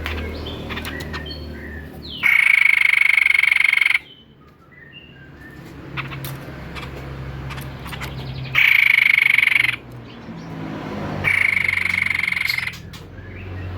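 White-breasted babbler (tepus dada putih) singing three loud, rapid trills held at one pitch, each lasting a second or two, with faint short chirps in the pauses and a low hum underneath.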